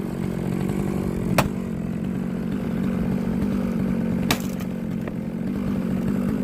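Small gasoline engine running steadily, with two sharp knocks, the first about a second and a half in and the second about four seconds in.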